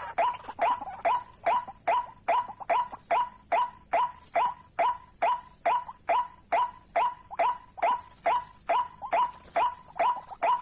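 White-breasted waterhen calling: a steady run of short, loud notes, each bending down in pitch, repeated about two and a half times a second.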